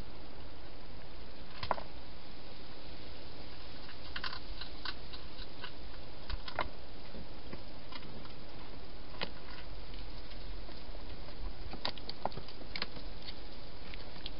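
Wild hedgehog eating from a feeding bowl: scattered crunching clicks, in short clusters, over a steady hiss.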